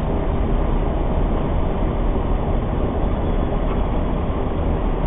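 Steady flight-deck noise of an Airbus A330 on short final approach: airflow and engine noise heard from inside the cockpit, even and unbroken.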